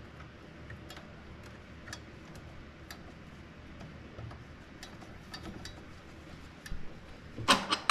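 Light metallic ticks and clicks, unevenly spaced, as the new choke plunger and spring are fitted back into a Mikuni carburetor and its cap is screwed down, with a louder clatter of parts near the end.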